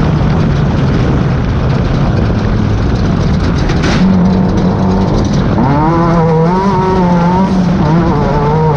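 Class 10 off-road race car engine running hard over heavy rattle and road noise, with a sharp knock just before halfway. From just past halfway the revs climb and waver up and down.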